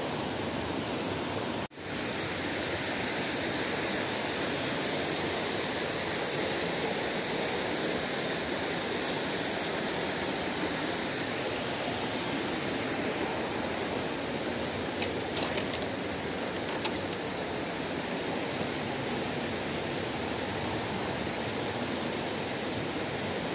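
Steady rushing of flowing stream water. It cuts out for an instant about two seconds in, and a few faint clicks come about two-thirds of the way through.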